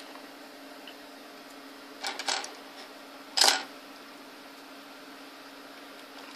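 Hard plastic clicks of a G1 Transformers Blaster toy being handled at its cassette deck: a few quick clicks about two seconds in, then one sharper clack about a second later.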